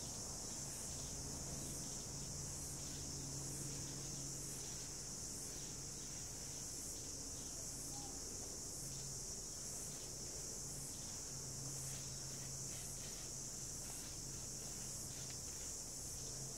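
Insects chirring in a steady high-pitched chorus with a faint regular pulse.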